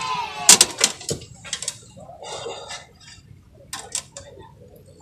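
Fishing rods and reels being handled in their holders: a few scattered sharp clicks and light knocks, about three in the first second and a couple more near the end, with a soft rustle in between.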